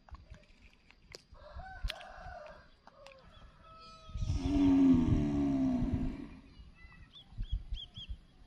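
A rooster crowing: one long call of about two seconds in the middle, with a fainter call shortly before it and a few short high bird chirps near the end.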